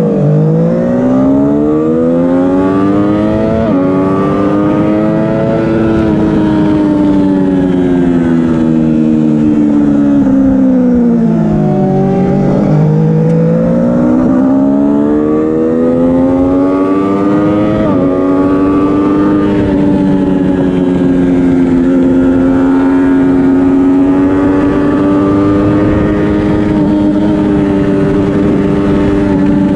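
2012 Triumph Daytona 675R's three-cylinder engine at racing speed, heard onboard: the revs climb, fall away slowly through the middle, then climb again and hold high and steady for the last ten seconds or so, with short breaks in the note about three and a half and eighteen seconds in.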